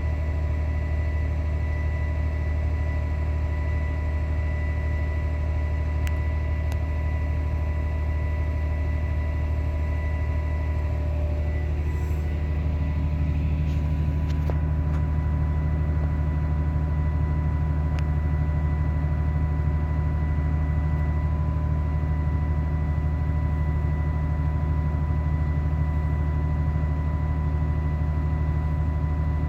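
Tractor engine running steadily under load, heard from inside the cab as a strong low drone with a steady high whine over it. About twelve seconds in the sound shifts: one tone drops out and the low hum grows slightly louder.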